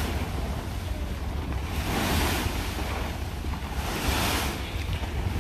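Wind buffeting the microphone, a steady low rumble with gusts that swell and fade about every two seconds.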